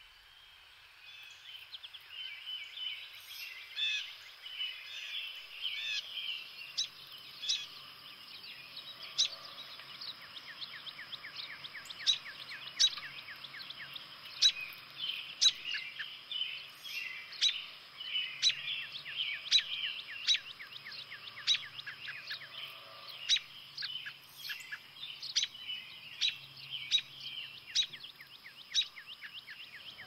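Small wild birds chirping and calling, with many short, sharp ticks that come more often after the first few seconds, over a thin steady high tone.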